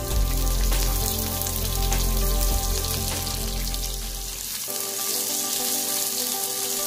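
Sliced onions and garlic sizzling in hot oil in a frying pan alongside browned pork pieces. A low steady hum underneath stops about two-thirds of the way through.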